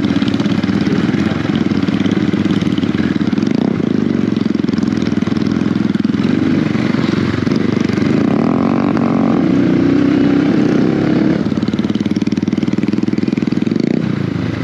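Dirt bike engine running under way on a rough trail, its pitch rising and falling with the throttle, with a rise and fall in pitch about eight to eleven seconds in.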